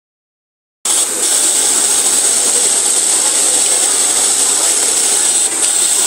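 Steady machine noise with a strong high-pitched hiss that starts suddenly about a second in: a running snap-button attaching machine in a garment workroom.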